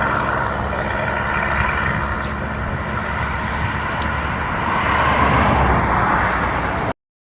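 A vehicle's engine running steadily with road noise, with two brief sharp ticks about four seconds in. The sound cuts off abruptly near the end.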